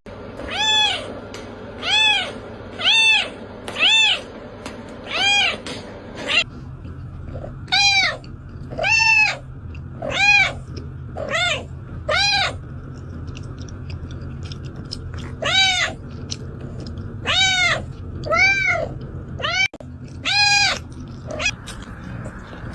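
Domestic cat meowing over and over, about fifteen short calls that rise and fall in pitch, in three runs. The meows sound like "mama".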